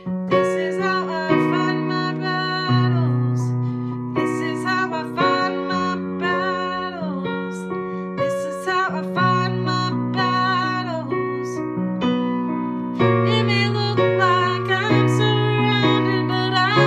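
Yamaha digital piano playing held chords in F-sharp major, changing every second or so, with a woman's voice singing along above them.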